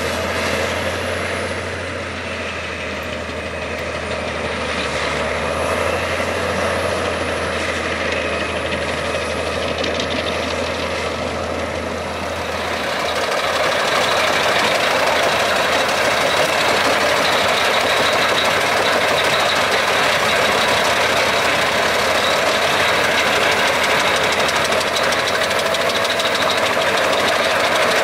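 Albach Diamant 2000 wood chipper's 770 hp six-cylinder engine running steadily under load while the chipper shreds logs and blows the chips out of its spout. The sound grows louder about halfway through.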